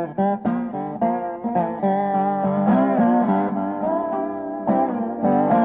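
Acoustic guitar-led music: plucked strings with a melody of held notes.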